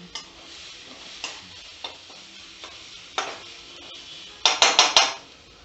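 Slotted metal spatula scraping and knocking against a metal wok as onions and ginger-garlic-chilli paste are stirred in oil, over a low, steady sizzle. A few separate strokes, then a quick run of about four louder scrapes near the end.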